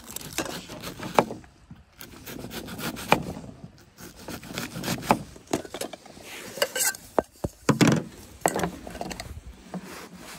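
A kitchen knife cutting an onion on a plastic cutting board, with plastic camp bowls handled: irregular knocks and clicks with scraping between them.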